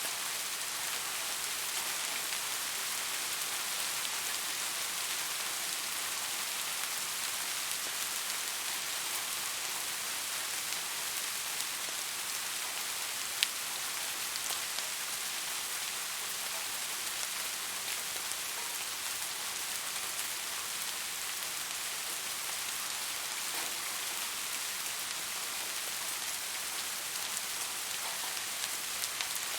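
Steady rain falling: an even, unbroken hiss, with one sharper drop tap a little before halfway.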